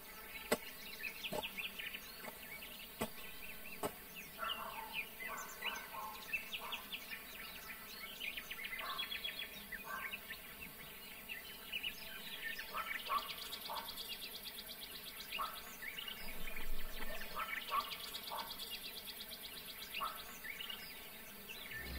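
Quiet outdoor ambience of birds chirping and calling, with an insect trilling in rapid pulses twice, around the middle and again later. A few sharp knocks come in the first four seconds.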